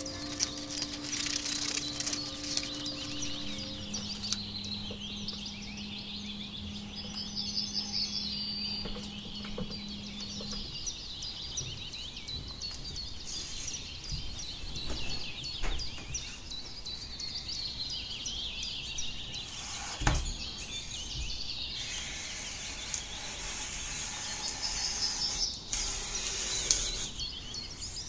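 Many small birds chirping and twittering in a dense, high chorus over a light hiss, with a short knock about twenty seconds in.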